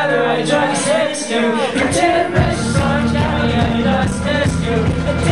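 Live rock band playing with a singer, recorded from within the audience. The bass and drums come in fuller and heavier about two seconds in.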